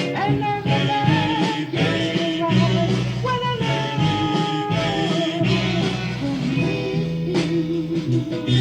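Soul music playing: a band with a wavering lead melody over a steady bass line.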